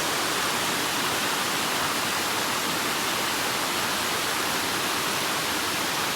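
Waterfall's steady rush of falling water, an even hiss that holds at one level.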